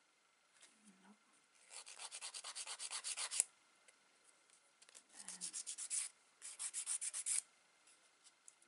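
A hand nail file (emery board) rasps across long fingernail tips in quick back-and-forth strokes. It comes in three runs: a longer one about two seconds in and two shorter ones in the second half, as the nail edge is shaped.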